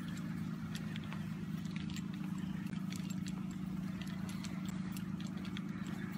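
Steady low drone of distant truck and road traffic, with scattered light clicks and rustles of footsteps through wet grass.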